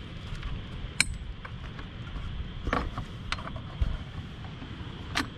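Hands fitting motorcycle crash-bar hardware: four sharp metal clicks and clinks, spread over a few seconds, as a bolt and spacer are worked into place behind the steel bar, over low handling rumble.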